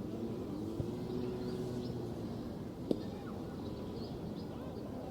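A siren wailing, its pitch sliding slowly up and down in long glides, with short high bird chirps over it and a sharp tick about three seconds in.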